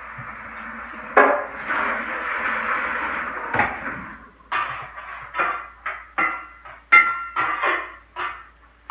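Scrambled eggs sizzling in bacon grease in a skillet, with a clatter about a second in and a louder hiss for a couple of seconds. From about halfway, a spatula scrapes and knocks against the pan, about two sharp strokes a second with a short metallic ring.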